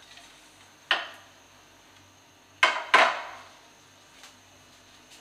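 Sharp knocks and clatters of kitchen things being handled around a stove while someone looks for a cumin tin: one about a second in, a quick double knock near three seconds, and a faint tap after four seconds, each ringing briefly, over a faint steady hum.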